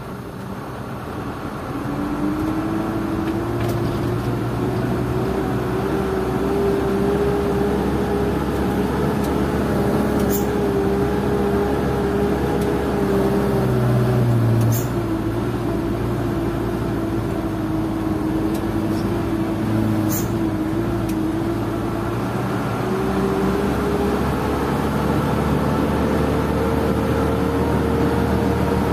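Isuzu Elf NKR71 light truck's diesel engine, heard from inside the cab while driving. The engine note rises over the first couple of seconds, dips in pitch about halfway, then climbs again near the end.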